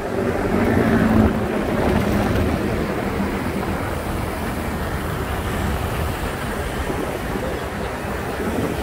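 Wind rushing over the microphone and traffic noise while cycling along a busy road. A motor vehicle's engine runs close alongside for the first couple of seconds.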